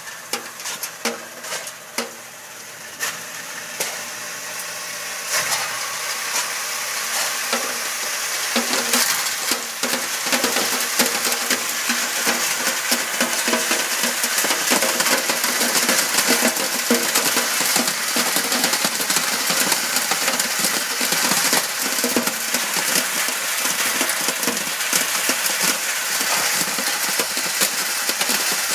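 Older MultiScreener 07 soil screener separating stones from soil: gravel and stones rattle and clatter on its metal screen, a dense continuous rattle. For the first few seconds there are only scattered clicks and scrapes, then the rattle builds about five seconds in.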